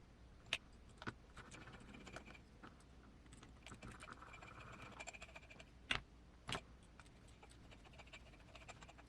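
Faint clicks and taps of small metal parts and tools being handled while a small aluminum RC portal axle is taken apart by hand. Sharper single clicks come about half a second in, about a second in, and twice around six seconds in.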